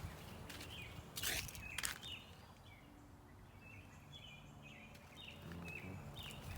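A small bird chirping repeatedly in short high calls, over a faint low background hum, with a couple of sharp clicks or rustles between one and two seconds in.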